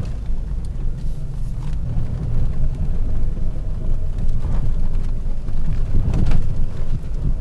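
Vehicle driving, a steady low rumble with a few faint knocks.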